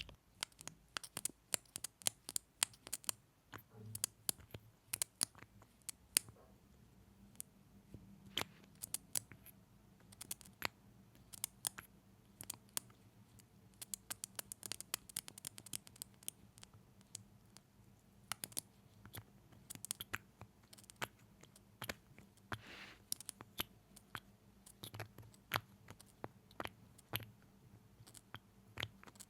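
Close-miked ASMR mouth sounds: a dense, irregular stream of small wet clicks and lip smacks.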